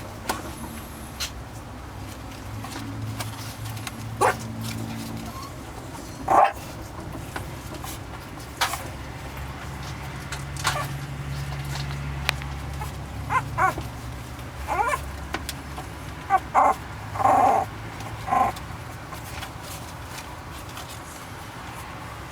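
Shiba Inu puppies about 18 days old giving short squeaky yips and whines, scattered at first and coming in quick clusters about two-thirds of the way through, over a low steady hum.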